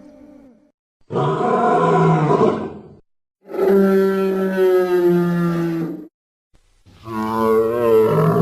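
Antarctosaurus dinosaur sound effect: three long, deep bellowing calls, each two to three seconds, with short silences between. The last call wavers in pitch.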